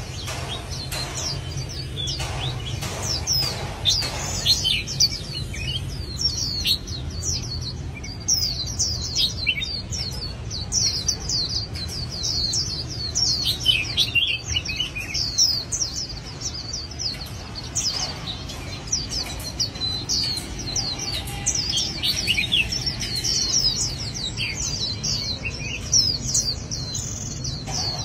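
Small birds chirping and singing, many quick falling chirps overlapping throughout, over a steady low hum.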